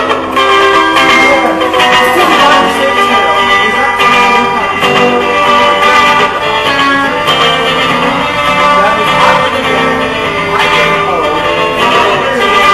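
Instrumental music led by guitar, busy with many notes and no singing.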